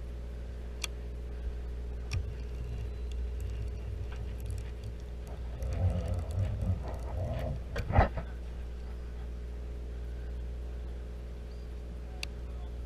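Boat engine running with a steady low hum, and a cluster of handling knocks and clicks from the rod and reel in the middle, the loudest a sharp knock about eight seconds in.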